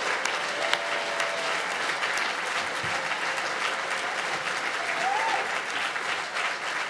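A large audience applauding, a dense, steady clatter of claps with folding hand fans snapped among them, and a few whoops about a second in and again near the end.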